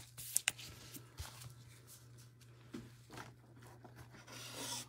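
Faint handling noises of trading cards in clear plastic holders moved by gloved hands: two light clicks about half a second in, then soft rustling and sliding that swells near the end, over a low steady hum.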